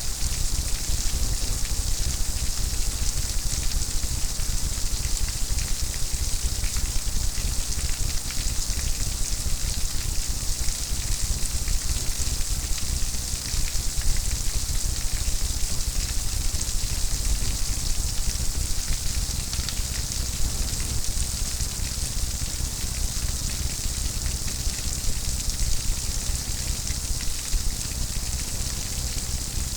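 Steady rain falling, a dense patter of drops with a constant hiss.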